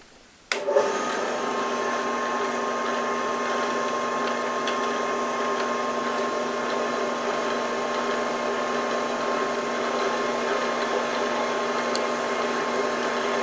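A 4x6 horizontal metal-cutting bandsaw switched on about half a second in, then running steadily: motor hum with the blade running through its ball-bearing guide rollers. Faint ticks now and then come from the blade's oversized weld hitting the guide rollers, which are set too tight.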